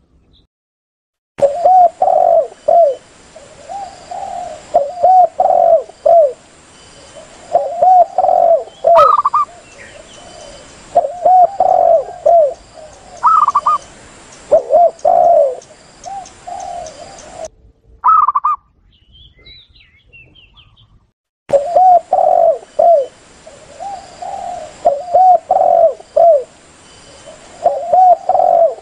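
Spotted doves and zebra doves cooing: groups of several low, rounded coos repeat every couple of seconds, with a few higher, shorter coos mixed in over a faint hiss. The calling breaks off into silence at the start and again for a few seconds past the middle, then resumes.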